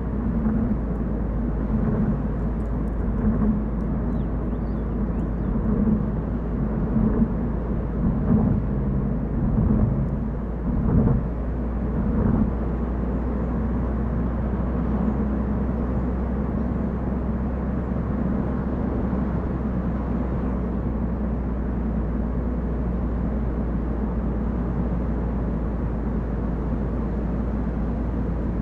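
Car driving on a mountain road: steady engine and tyre noise with a low rumble. There are a few knocks and uneven swells in the first twelve seconds, after which it runs smoothly.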